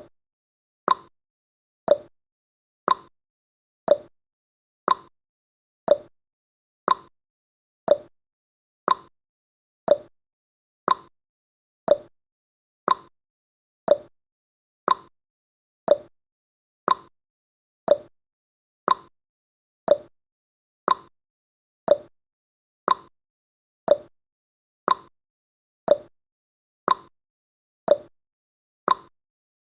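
Countdown timer's tick sound effect: one short, sharp tick every second, evenly spaced, with silence between.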